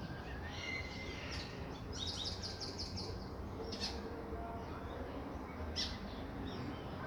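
Light rain as a steady hiss over a low, even rumble, with birds chirping: a quick run of repeated chirps about two seconds in, and single chirps later.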